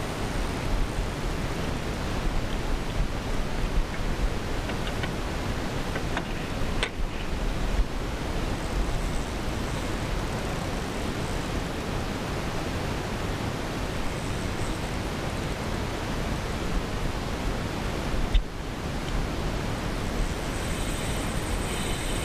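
Steady rushing noise with no clear tone, heaviest in the low end, dipping briefly twice.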